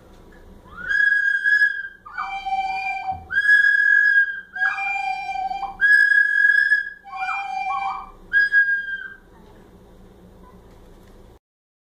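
Small whistles blown by children: about seven notes, each about a second long, alternating between a higher and a lower pitch.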